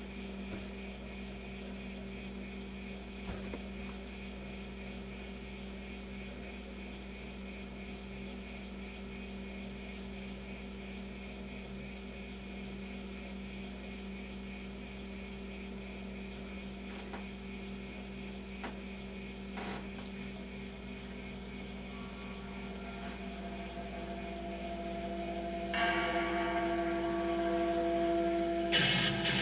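Vintage GE 212 tube radio humming steadily through its speaker as it warms up after being switched on. Near the end the sound grows louder as a broadcast signal begins to come through.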